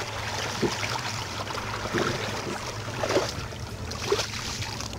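River water splashing and sloshing as a catfish is let go by hand over the side of a boat, with a few sudden louder splashes scattered through.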